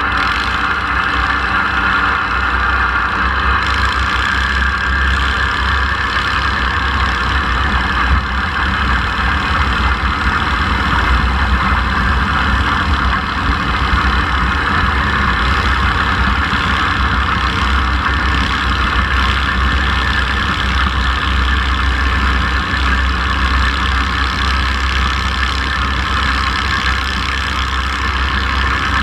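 Garden pulling tractor's engine running steadily under load as it pulls down the track, heard close up from the driver's seat.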